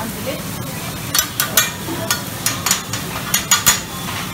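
Food sizzling on a hibachi flat-top griddle, with metal utensils clacking and scraping against the steel plate in a run of sharp clicks from about a second in.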